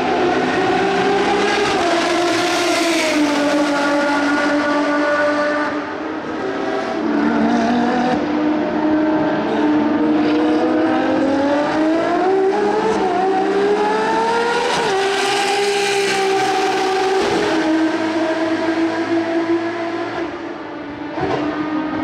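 Ferrari 599XX race cars' V12 engines driving past at speed. The pitch climbs under acceleration and drops suddenly at each gear change, with one long climb and a sharp drop about two-thirds of the way in.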